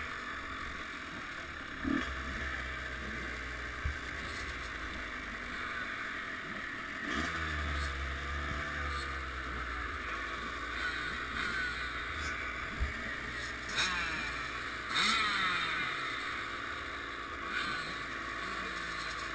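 Dirt-bike engines idling, with the pitch rising and falling as the throttle is blipped now and then. A few short knocks sound over them.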